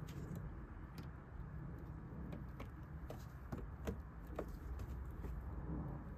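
Irregular light clicks and knocks of a plastic fog-lamp surround trim being handled and pressed into a Ford Kuga's front bumper, over a low steady rumble.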